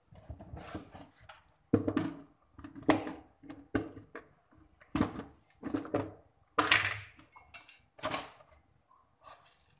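Objects being handled and set down close to the microphone: a string of short knocks, clatters and rubbing sounds, about a dozen over ten seconds.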